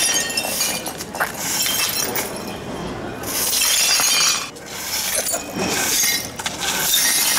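Push broom sweeping broken glass and bottles across a tiled floor, the glass scraping and clinking with each stroke in a run of repeated sweeps.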